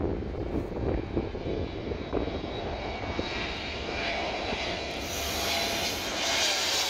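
Landing airplane passing low overhead, its engine noise swelling from about halfway through and loudest near the end, over wind rumble on the microphone.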